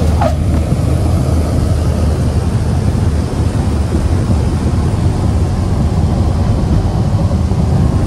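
Cabin noise of a small propeller plane rolling fast along the runway: a loud, steady low drone of engine, propeller and wheels heard from inside.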